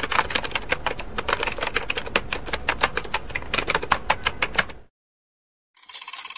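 A fast, uneven run of sharp clicks, many to the second, like typing keys, that stops abruptly about three-quarters of the way through. After a second of dead silence, music starts near the end.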